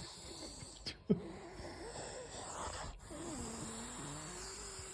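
A sleeping pit bull snoring, its breath wheezing with a thin wavering whistle from about a second in. A short click about a second in.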